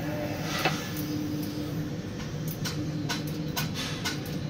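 Steady machinery hum inside a tower crane cab, with a faint tone that comes and goes and scattered light ticks.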